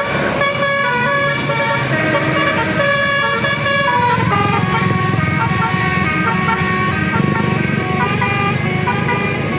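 Bus telolet horn, a multi-tone air horn, playing a quick tune of short notes that step up and down in pitch. From about four seconds in, the low rumble of the bus's engine joins beneath it.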